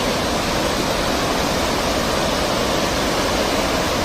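Floodwater of a mountain river in spate rushing past: a loud, steady wash of water noise with no break.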